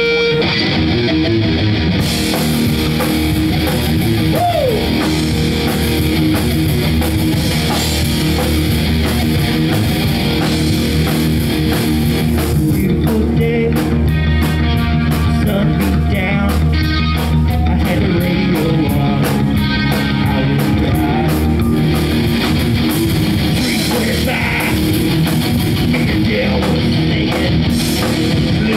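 Live rock band playing loud, with electric guitars and a drum kit, and a man singing into a microphone.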